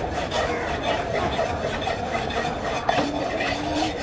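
A knife blade being rubbed back and forth against a round sharpening stone, making repeated rasping strokes.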